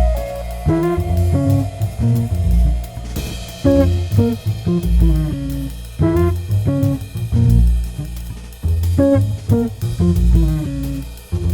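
Instrumental music: a plucked guitar line over bass and drums, the same short phrase repeating every couple of seconds.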